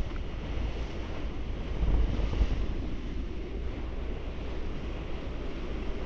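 Sea water rushing past a moving ship's bow, with wind buffeting the microphone.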